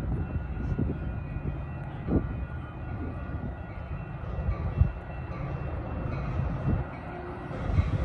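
Wind buffeting the microphone in low rumbling gusts, with sharper thumps about two seconds in and near five seconds, over the faint sound of a Metra commuter train approaching in the distance.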